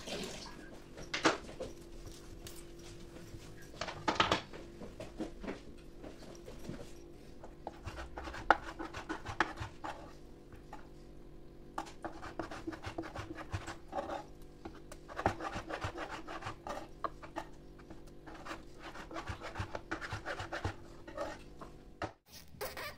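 Kitchen knife cutting raw chicken breast on a cutting board: soft rubbing and scraping with sharp knocks of the blade on the board now and then, over a faint steady hum.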